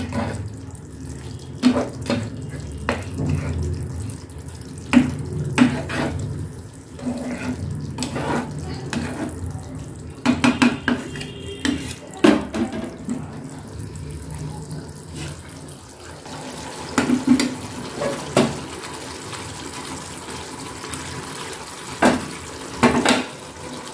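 Thick mustard curry simmering in a pan on a gas stove, bubbling with irregular pops over a low steady rumble that drops away about two-thirds of the way through.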